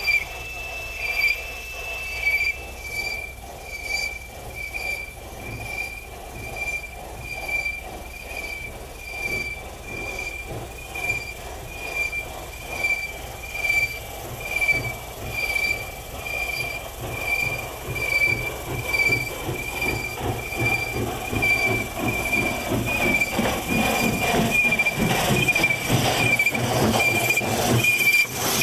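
Steam locomotive working slowly, its exhaust chuffing evenly about once a second and growing louder as it approaches, until the engine runs close past near the end. A steady high-pitched whine sounds throughout.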